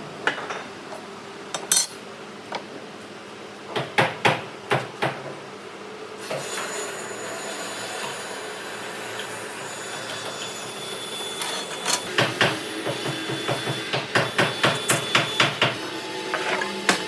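Hammer strikes: a few separate blows in the first seconds, then a quick run of taps, about four a second, over the last few seconds.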